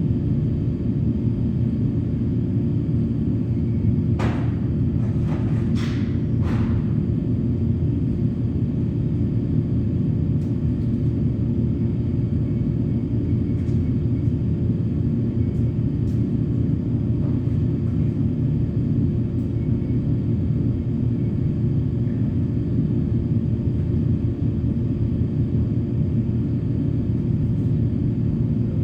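A steady low mechanical rumble with a constant hum, unchanging in level, with a few faint clicks about four to seven seconds in.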